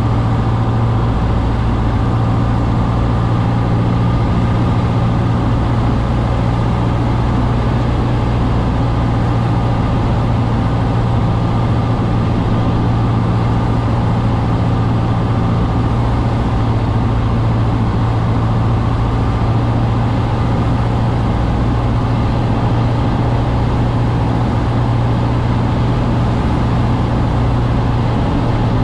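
Cessna 150's four-cylinder Continental O-200 engine and propeller running with a steady, unchanging drone and a strong low hum, heard from inside the cabin.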